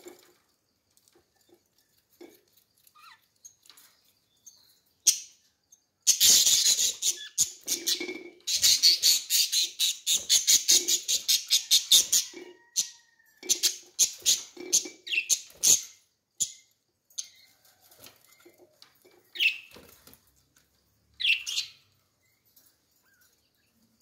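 Budgerigars chirping: a fast, dense run of short chirps for about six seconds, then shorter bursts and a few single calls.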